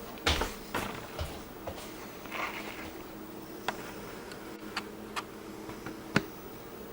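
Scattered light clicks and taps from handling the LED retrofit fixture and tools at the ceiling, with a short rustle partway through and a faint steady hum underneath.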